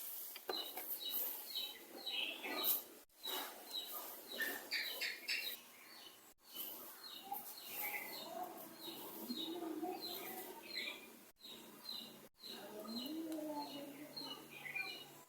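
Small birds chirping in the background: short high chirps repeating about twice a second. The sound drops out briefly several times.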